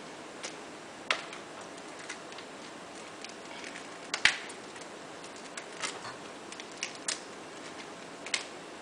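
Raw cauliflower florets being snapped off the head by hand: a few irregular crisp snaps and cracks, the loudest about four seconds in.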